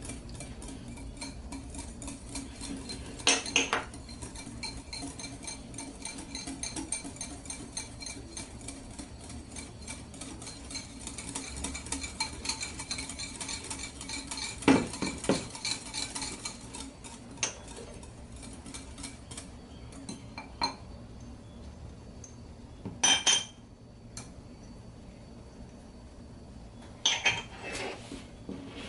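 A creamy mayonnaise dressing being beaten in a bowl: a utensil clicks rapidly and steadily against the bowl, thinning out in the second half, with a few louder clinks and knocks.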